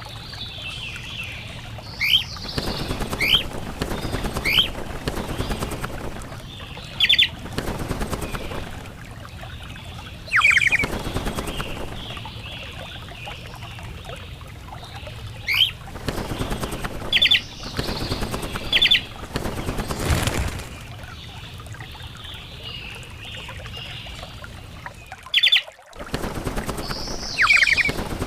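Birds calling with short falling chirps every few seconds, some given in quick pairs, mixed with bursts of wing flapping.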